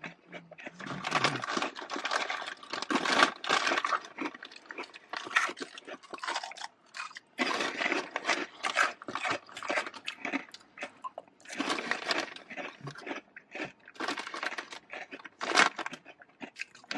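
Crunching and chewing of food close to the microphone, in irregular bursts with short pauses.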